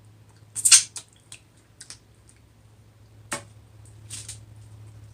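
Close-up eating sounds: scattered sharp clicks and smacks from chewing and handling seafood, the loudest just under a second in, over a faint steady low hum.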